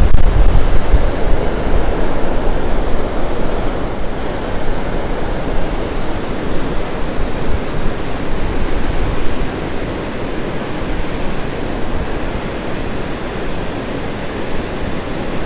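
Ocean surf breaking steadily along the shore, with wind rumbling on the microphone that is heaviest in the first seconds and then eases.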